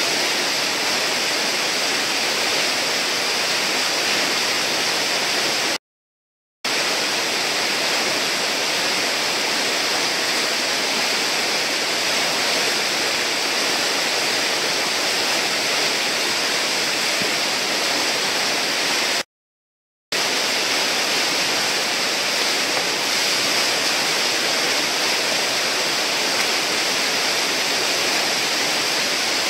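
Steady rushing of whitewater churning through a river hole. The sound cuts out to silence twice for under a second, about six seconds in and again near twenty seconds.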